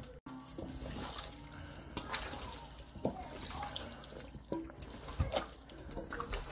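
Hands squishing and turning raw seasoned chicken wings in a stainless steel bowl: irregular wet squelches and slaps of meat, with small knocks against the bowl.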